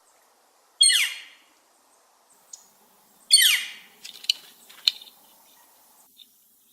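Red-shafted northern flicker giving two loud calls about two and a half seconds apart, each a falling scream. A few sharp clicks follow.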